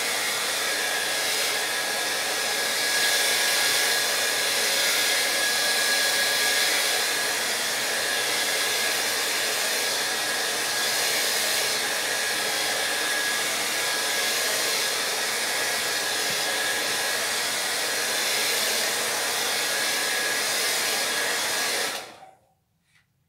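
Handheld hair dryer blowing steadily over a watercolour painting to dry the paint, with a faint steady whine above the air noise. It is switched off near the end and the sound dies away within about half a second.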